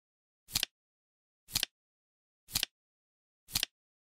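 Flip-clock countdown timer clicking once a second, four times, each click a quick double snap with total silence between.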